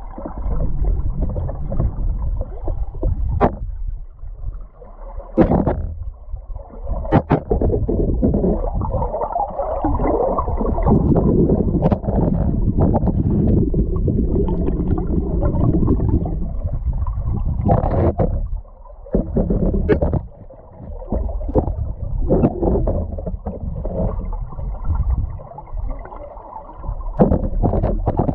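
River current heard underwater through a camera housing: a muffled, surging rush that swells and dips, broken by sharp knocks as the rig bumps against the stones of the riverbed.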